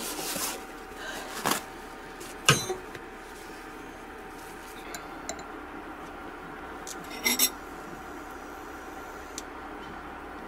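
Kitchen utensils knocking and clinking against dishes during food preparation. There are a handful of sharp knocks, the loudest about two and a half seconds in and a quick pair about seven seconds in, over a steady background hum.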